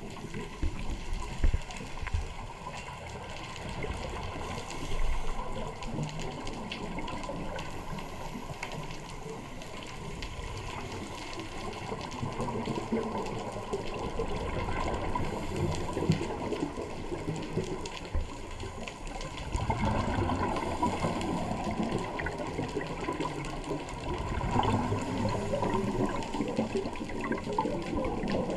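Scuba divers' exhaled air bubbles from their regulators, heard underwater: a muffled, continuous bubbling and gurgling that swells in surges with each exhalation.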